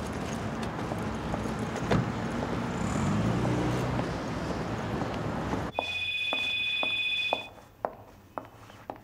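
A steady, loud noisy rumble with a single knock about two seconds in, then an abrupt change to a quiet office where an electronic telephone rings once, a steady two-tone ring lasting under two seconds, followed by scattered keyboard clicks.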